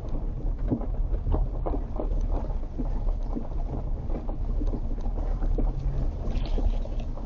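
Vehicle driving slowly over a rough, rocky dirt road: a steady low rumble with frequent irregular knocks and rattles as the tyres hit rocks and the body jolts.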